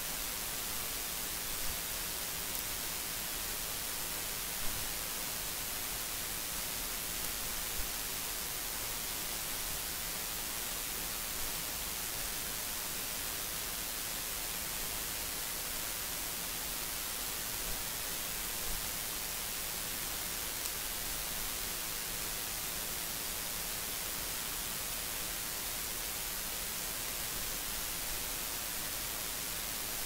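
Steady hiss of recording noise, strongest in the high end, with a few small clicks scattered through it.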